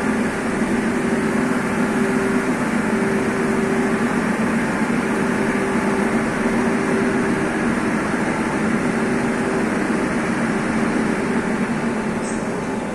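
A Moscow Metro subway train standing at the platform with its doors open, its onboard equipment running with a steady hum of two low tones over a constant whirr.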